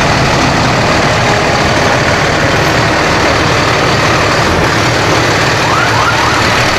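Fire trucks' diesel engines running steadily as the trucks roll slowly past.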